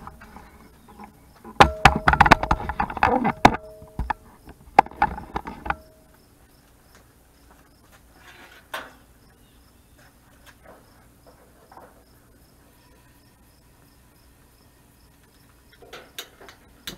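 Knocks, rattles and scraping of a camera being handled and moved in close, loudest in the first few seconds. Near the end come a few sharp clicks of a long utility lighter at a propane camp-stove burner. Insects chirp steadily and regularly in the background.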